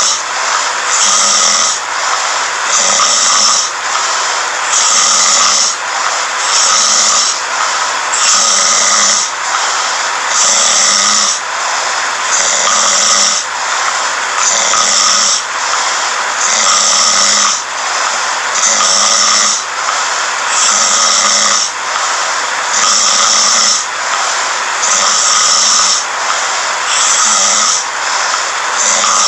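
A sleeping person snoring in a regular rhythm, about one snore every two seconds, each low snore alternating with a hissing breath.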